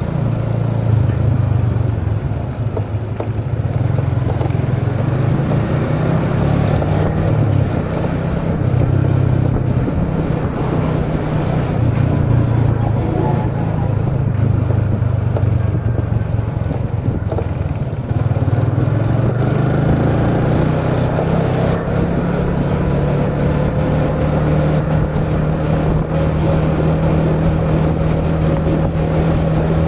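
Motorcycle engine running while riding, under a steady rush of wind and road noise. The engine note wavers with the throttle, dips briefly about 18 seconds in, then runs steadier.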